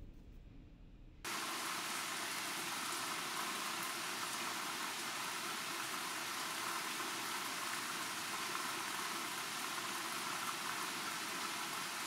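The low tail of a thunder rumble dies away, then about a second in a steady, even hiss of rain starts abruptly and holds.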